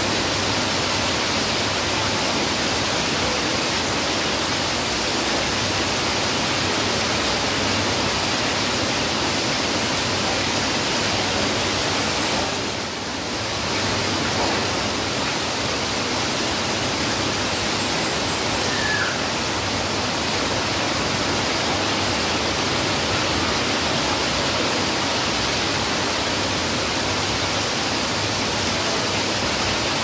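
Heavy rain falling steadily, with runoff pouring off a roof edge. The rain briefly softens about thirteen seconds in.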